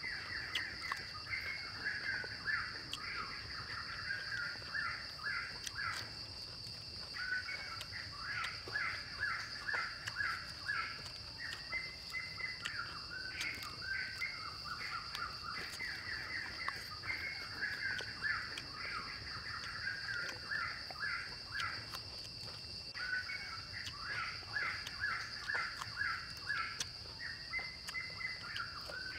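A bird singing long runs of quick chirps, breaking off briefly twice, over a steady high-pitched insect drone.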